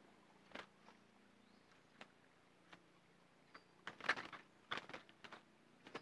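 Scattered soft clicks and rustles, thickest in a flurry about four seconds in, of a bulbul moving about and fluttering against a wire-mesh bird trap.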